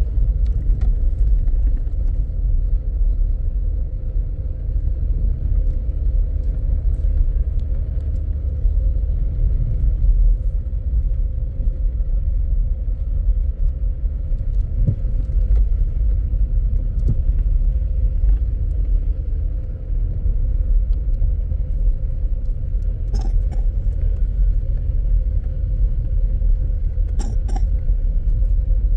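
Steady low rumble of a car driving on a dirt track, heard from inside the cabin: engine and tyres on the unpaved surface, with a few short knocks and rattles in the last few seconds.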